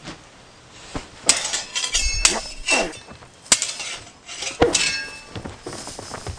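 Swords clashing in a fight: a series of sharp metallic clangs, several of them ringing briefly, mixed with duller thuds.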